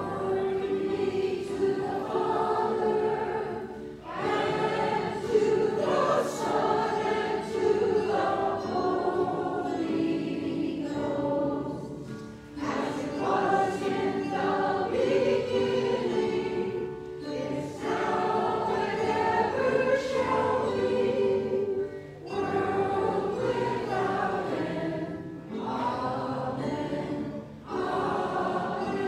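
Small church choir singing a worship song into microphones with keyboard accompaniment, in sung phrases broken by short pauses.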